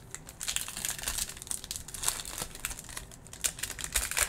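Shiny foil wrapper of a 2021 NFL Mosaic trading-card pack crinkling in the hands as it is handled and torn open, a quick run of crackles.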